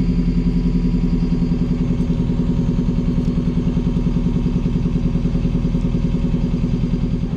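Hire cruiser's inboard diesel engine running steadily at low cruising speed, with a fast, even throb.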